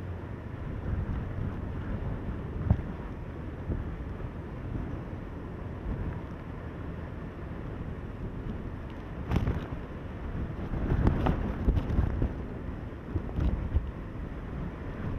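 Typhoon-force wind buffeting the microphone in a continuous low rumble, with stronger gusts breaking through in the second half.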